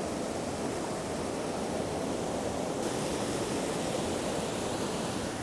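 Steady rush of fast-flowing river water and whitewater rapids. It turns brighter and hissier about three seconds in.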